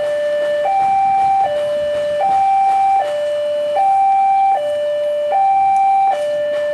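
Railway level-crossing warning alarm sounding its electronic two-tone chime, a higher and a lower tone alternating about every three quarters of a second, signalling that a train is approaching with the barrier down.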